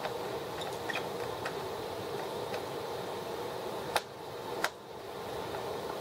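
Hand work on a laptop's keyboard area while a screw is taken out: a few faint ticks, then two sharp clicks about four and four and a half seconds in, over a steady background hum.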